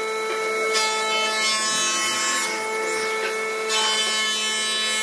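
Handheld power drill boring into a pine board, the bit rasping through the wood in a couple of stretches, over a steady hum of several held tones.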